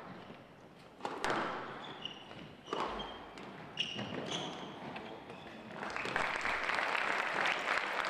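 A squash rally: the ball is struck and cracks off the court walls a few times, with short high squeaks of shoes on the court floor in between. About six seconds in, spectators start applauding as the rally ends.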